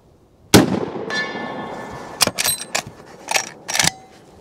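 A single shot from a Henry .45-70 lever-action rifle, followed about half a second later by a fading metallic ring, which fits a hit on the 100-yard steel target. Then several sharp metal clacks as the lever is worked to eject the spent case and chamber the next round.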